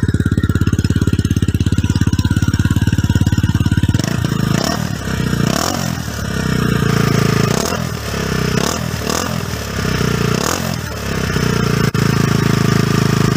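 SYM T2 motorcycle engine running through its stock silencer, which has been packed with steel pipe inserts and a steel pot scrubber to quieten it. It idles steadily, then from about four seconds in the throttle is blipped several times, the revs rising and falling, and near the end it settles back to idle; the owner finds the packed exhaust very quiet.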